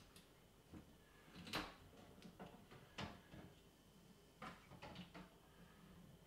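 Faint scattered clicks, knocks and light scrapes of plastic computer case parts being handled as the front panel of a Thomson TO9 is taken off, with the sharpest knock about a second and a half in.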